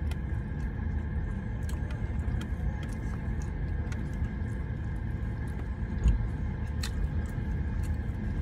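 Steady low rumble of a car idling, heard from inside the cabin, with scattered small clicks and smacks of people chewing food. One thump stands out about six seconds in.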